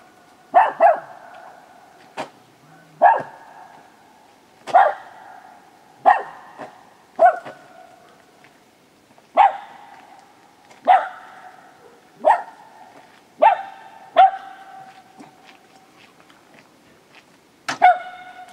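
A poodle barking repeatedly, about a dozen sharp barks one to two seconds apart, some in quick pairs.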